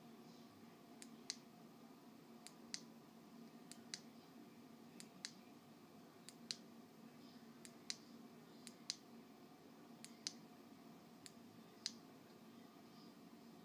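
Faint sharp clicks, mostly in close pairs, coming about once every second and a quarter over a quiet background hum.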